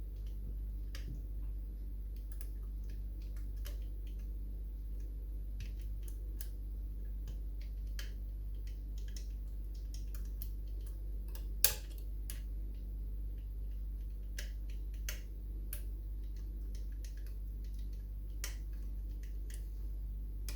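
Wire lock pick and tension tool clicking and ticking inside a five-lever Chubb 3U114 mortice lock while the levers are probed for one that binds: scattered small ticks, with one sharper click about twelve seconds in.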